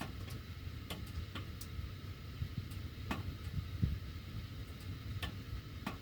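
Sheet-metal heating ductwork making irregular sharp ticks and clicks, about nine in six seconds at uneven spacing, over a steady low rumble of air moving through the ducts with the heat on.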